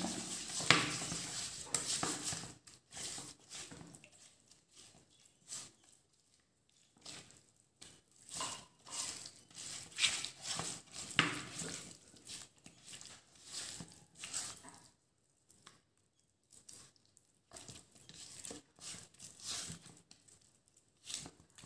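Irregular rustling and scraping of food and utensils being handled, in short noisy strokes that come in clusters with short pauses between them.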